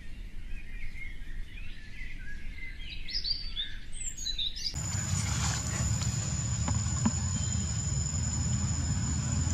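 Wavering high chirps that climb in pitch, then an abrupt change to outdoor ambience: a steady high-pitched insect drone over a low rumble, with a few faint clicks.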